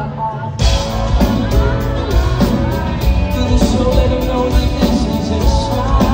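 Live pop-rock band playing loud: electric guitar, bass and drums under a male lead vocal singing. The full band drops out for about half a second right at the start, then comes back in.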